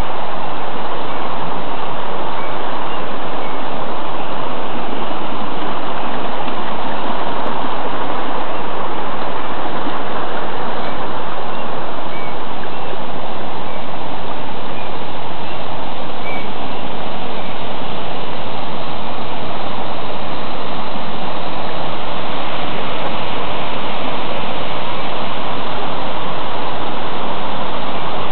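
Flowing water rushing steadily and loudly, as from a stream or small waterfall.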